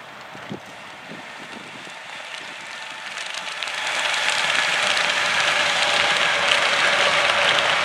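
Class 185 electric freight locomotive and its wagons of truck trailers passing, a steady rush of wheels on rail that grows louder about three to four seconds in as the train draws level.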